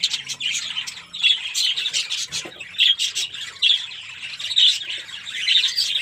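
Budgerigars in a breeding colony chattering and squawking: many short, high calls in quick, irregular succession.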